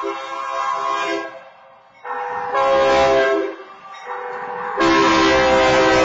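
Diesel locomotive air horn sounding the grade-crossing signal in blasts: a long one from about two seconds in, and another starting near five seconds that runs on as the engine reaches the crossing, with the train's rumble underneath. Before the first blast, the crossing's wayside horn sounds in a pulsing tone.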